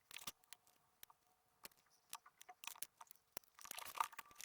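Small precision Torx screwdriver working the tiny screws of a Siemens SL55 phone's casing: faint scattered clicks and light scrapes, with a busier stretch of scraping and clicking near the end.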